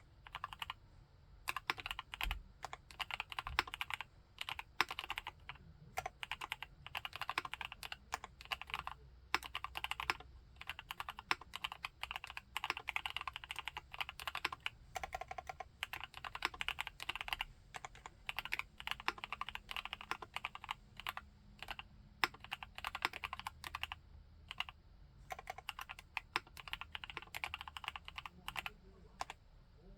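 Typing on a TACWORKS TAC T2 mechanical keyboard with Gateron Yellow linear switches: fast, continuous runs of keystrokes with a few short pauses.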